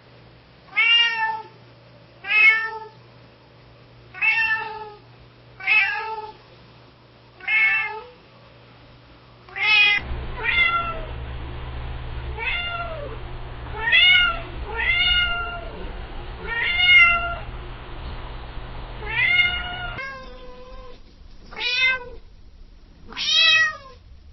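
Domestic cat meowing over and over, short pitched meows coming about every one and a half to two seconds. Around ten seconds in the background turns to a steady hum, and near twenty seconds it clears again as a different recording starts.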